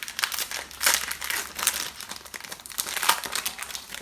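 Baseball cards and their pack wrappers being handled, with continuous crinkling, rustling and quick clicks.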